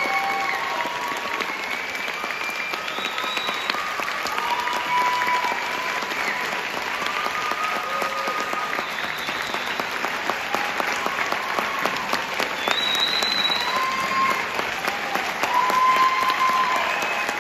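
Concert audience applauding steadily, with scattered cheering from the crowd.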